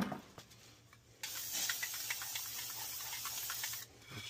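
Aerosol spray lubricant sprayed onto gas boiler burner tubes: one steady hiss of about two and a half seconds that starts about a second in and cuts off sharply.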